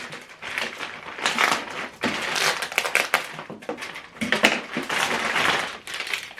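Packaging crinkling and rustling in irregular bursts as the accessories are handled and unwrapped.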